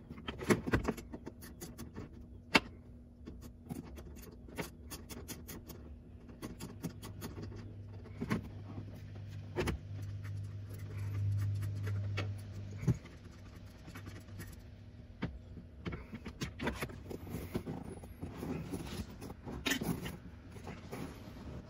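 Hand tools clicking, scraping and knocking against a car's plastic under-dash panel as its screws and nuts are taken out, with scattered sharp taps throughout. A low steady hum runs for several seconds in the middle and cuts off at a click.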